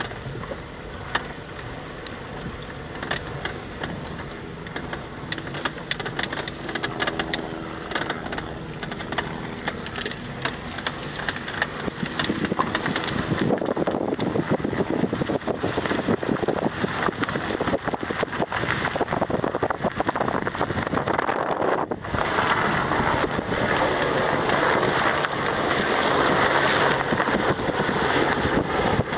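Car driving on an unpaved dirt road: steady tyre and road noise with many small knocks and rattles. Wind rushing over the microphone grows clearly louder a little before halfway through.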